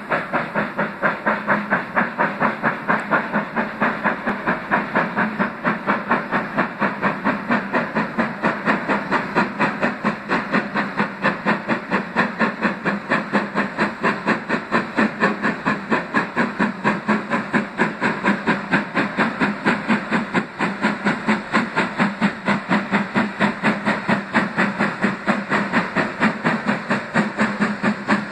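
BR Standard Class 4MT 2-6-4 tank steam locomotive working hard up a steep gradient, its exhaust beating evenly at about four beats a second. The heavy, regular beat is the sound of the engine struggling up the hill under load.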